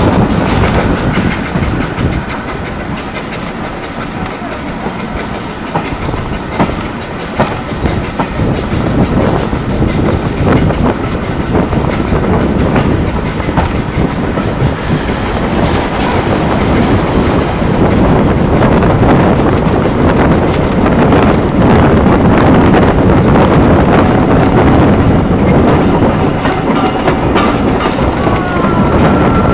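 Heritage railway carriage running along the track, heard from an open carriage window: a steady rumble with wheels clicking over the rail joints. It grows louder about halfway through, and a thin high steady tone comes in near the end.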